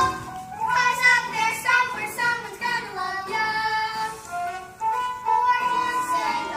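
A child singing a melody in a high voice, holding notes and stepping between pitches, over instrumental accompaniment.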